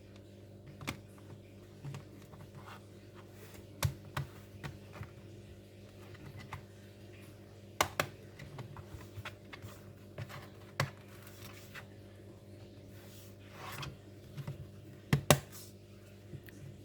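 Plastic case of an Acer Aspire ES1-132 notebook being handled and snapped back together, with irregular sharp clicks and knocks, the loudest a quick double click near the end.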